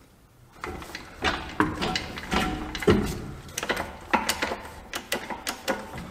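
Irregular metal clanks, clicks and knocks from a wheel dolly being worked against a truck's dual wheels and hub assembly, starting about half a second in.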